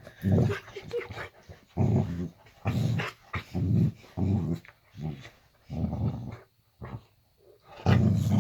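A boxer dog growling in a string of short, low growls, about one a second, with a brief pause near the end.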